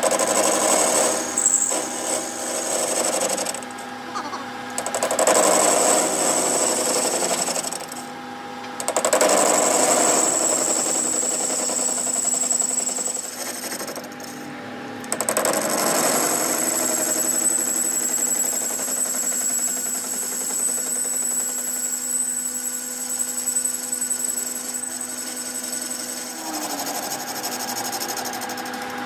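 Metal lathe turning a heavy truck wheel hub, the cutting tool shaving metal from it with a steady high-pitched whine over the machine's running. The cutting sound falls away briefly a few times as the cut stops and restarts.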